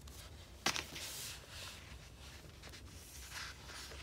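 A hand pressing and rubbing a paper sticker flat onto a planner page: soft scuffing of skin on paper, with one sharp click under a second in.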